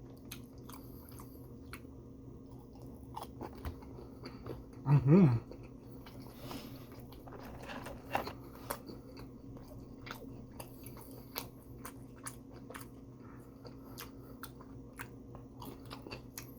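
A person chewing a fried chicken strip, with many short wet mouth clicks and crunches and a brief hummed 'mm-hmm' about five seconds in. A steady low hum runs underneath.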